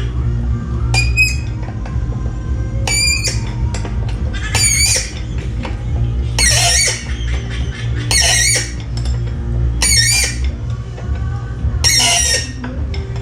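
Background music with a steady deep bass and a high, wavering squealing sound that repeats about every two seconds.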